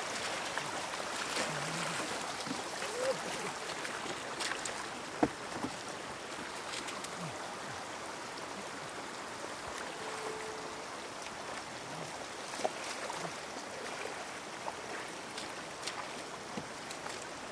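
Shallow floodwater running steadily over a road, with splashing from wading boots and scattered small knocks; one sharp knock stands out about five seconds in.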